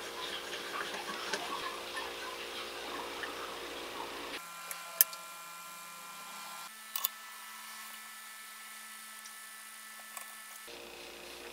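Small metallic clicks and handling of hand tools on the blower motor's end plate: screws being backed out with a bit driver, then a wrench turning a bearing puller, with a sharp metal click about five seconds in and a double click about two seconds later. A steady background hum of several tones runs underneath and shifts in pitch a few times.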